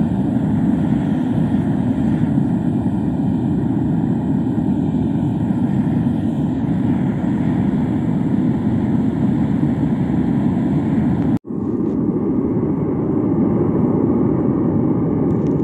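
Propane melting furnace's burner running steadily, a loud even rush of gas flame while it heats a crucible of scrap copper wire to melting. The sound cuts out for an instant about eleven seconds in, then resumes unchanged.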